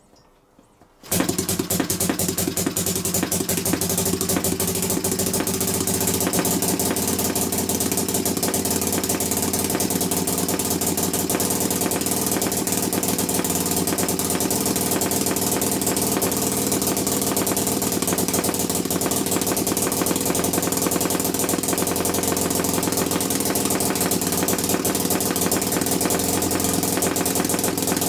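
Homemade single-cylinder two-stroke opposed-piston model engine (22 mm bore, 24 mm stroke) starting about a second in after a flick of the flywheel, then running steadily at a fast, even firing rate.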